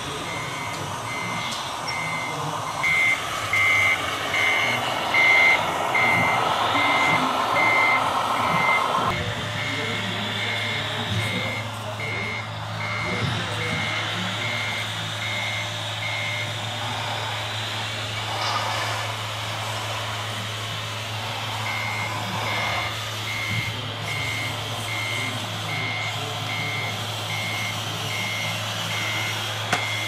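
Reversing beeper of a radio-controlled scale model truck, short high beeps about three every two seconds; they pause for a few seconds midway and then resume. Under them is a louder running noise for the first several seconds that cuts off abruptly, then a steady low hum.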